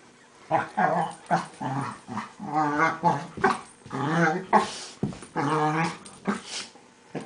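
Dogs play-fighting, one giving a string of growling, warbling yelps and whines that rise and fall in pitch and sound almost monkey-like. Some calls are short and others are drawn out for over half a second.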